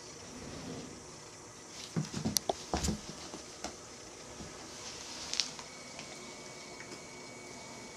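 Two cats wrestling: a burst of thumps and scuffling about two seconds in, then another brief scuffle a little after five seconds.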